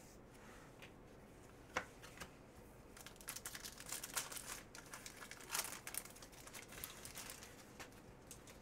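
Wrapper of an Upper Deck Artifacts hockey card pack being torn open and crinkled in the hands, a few seconds of crisp rustling, with a single sharp tap about two seconds in.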